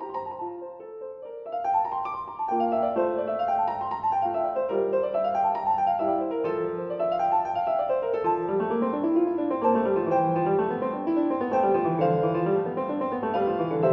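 Background piano music playing flowing runs of notes that rise and fall, growing fuller and louder about a second and a half in.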